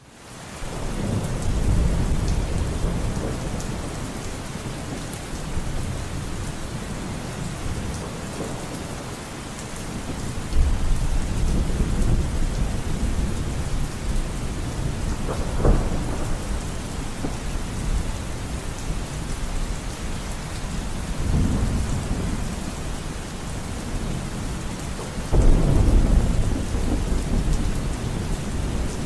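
Steady rain with rolls of thunder swelling up several times, fading in at the start.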